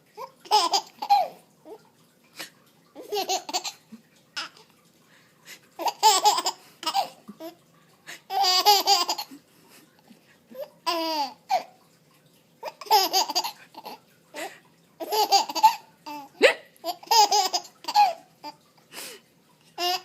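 Baby laughing in about eight separate bursts a few seconds apart, each a second or so long, in response to an adult's fake hiccups, with short sharp sounds between the bursts.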